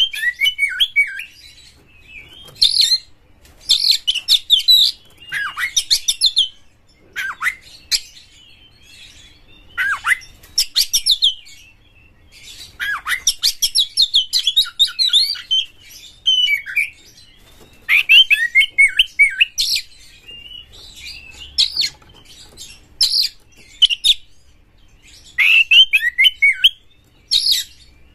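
Caged male oriental magpie-robin in full song: loud, varied phrases of clear whistles and rapid chattering notes, one phrase every second or two with short pauses between.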